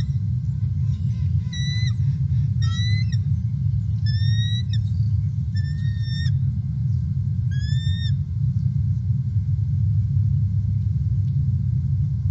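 Bald eagle calling at the nest: about six short, high-pitched chirping calls, some in quick runs of notes, over the first eight seconds as a second adult joins the incubating bird for a nest exchange. A steady low rumble runs underneath.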